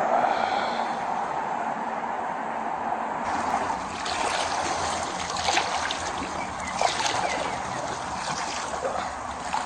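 Wading through knee-deep floodwater: steady sloshing and trickling of water around the legs, with a few sharper splashes around the middle.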